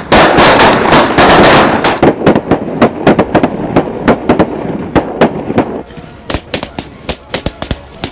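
A volley of shotgun fire from several hunters shooting at once at a flock of Canada geese. The shots come thick and overlapping for about the first two seconds, then scattered, with a quick run of sharp, somewhat quieter shots near the end.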